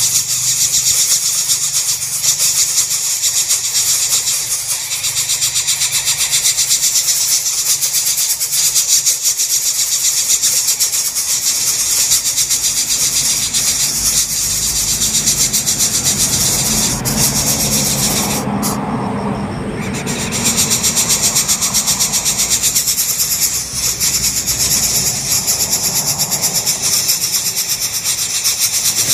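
Coucal nestlings begging with a loud, continuous, fast rasping hiss, with a brief break about two-thirds of the way through.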